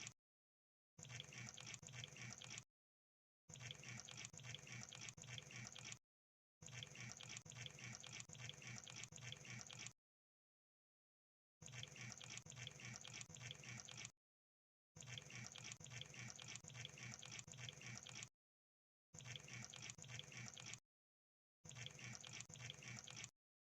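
Crab sounds played as a looped sound effect: bursts of rapid, fine crackling clicks, each lasting a second and a half to three and a half seconds, cut off abruptly between dead-silent gaps.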